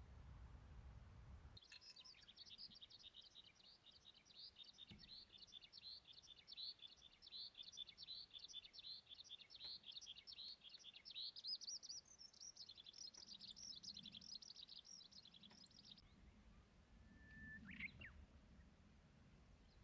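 A songbird singing faintly: one long, unbroken run of fast, high chattering notes lasting about fourteen seconds, which stops abruptly. A single short call follows near the end.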